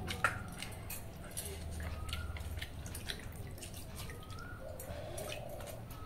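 Fingers mixing basi pakhala, rice soaked in water, in a steel bowl and plate: faint wet squishes and drips with scattered small clicks.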